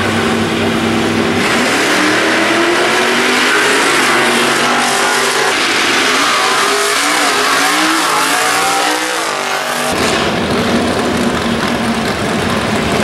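Drag-racing cars launching from the starting line and accelerating hard down the strip, the engine pitch climbing and dropping back several times as they shift through the gears. About ten seconds in the sound switches suddenly to engines idling at the line.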